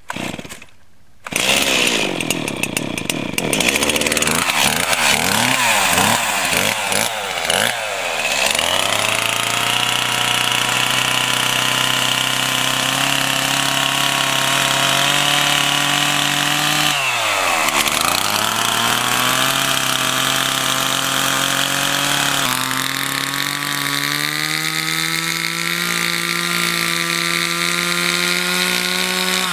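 Stihl two-stroke chainsaw starting about a second in and revving up and down for several seconds, then run steadily at high revs cutting into lake ice. The engine note dips briefly about two-thirds of the way through, then climbs back as the cut goes on.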